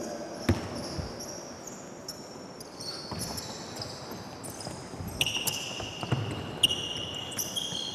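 Basketball shoes squeaking repeatedly on a gym floor as players run a drill, with a few thuds of a basketball bouncing. One longer squeak comes in the last three seconds.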